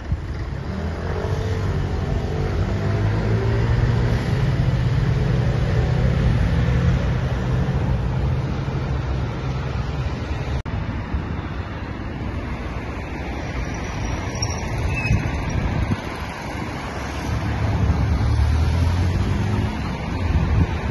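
City street traffic: cars running and passing over a steady low rumble, swelling louder in the first half and again near the end.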